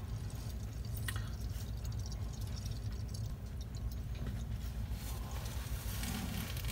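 Gasoline trickling in a thin stream from the drain valve of a fuel-water separator into a bowl of fuel, a faint pouring sound over a steady low rumble, with a small click about a second in.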